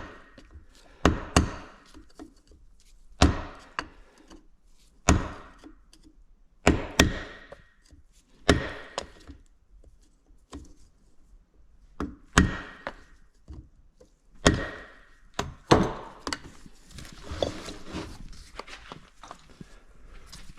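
Hammer blows on metal, single strikes one to two seconds apart, some with a short ringing tone, beating the bent locking tab of an anti-rotation washer flat on a 1985 Yamaha Tri-Z engine without a punch.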